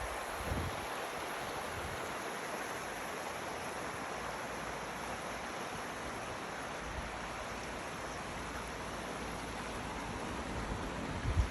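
Mountain stream water rushing steadily, an even, unbroken hiss.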